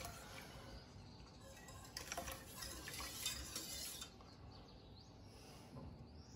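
Faint sound of a thin yogurt-and-milk mixture being poured slowly from a plastic jug into a stainless steel pot of milk while a wire whisk stirs it. There are a few light knocks of the whisk against the pot about two and three seconds in.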